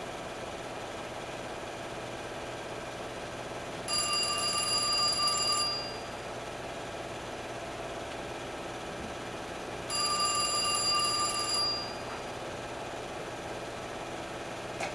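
A telephone ringing twice over a steady hum. Each ring lasts about two seconds and the two rings are about six seconds apart.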